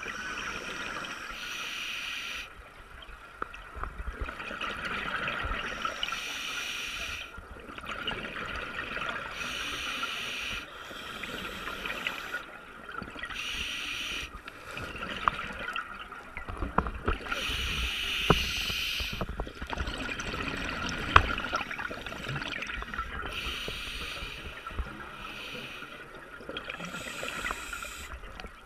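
Water splashing and sloshing in repeated surges every second or two, over a steady hiss, with a few sharp clicks.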